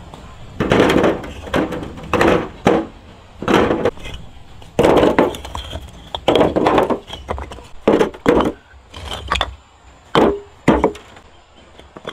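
Repeated chopping: a blade striking wood about a dozen times at an uneven pace.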